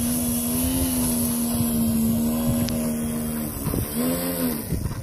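Electric RC model plane's brushless motor and propeller running with a steady whine as the plane taxis on grass. About three and a half seconds in the throttle drops, comes up briefly in a short rise and fall of pitch, and cuts off near the end.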